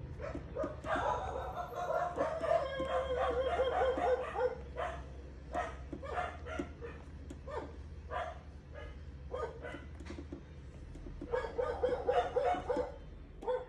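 Quick runs of repeated animal calls, one from about a second in to about four and a half seconds and another near the end, over light taps of a stylus tip on an iPad screen.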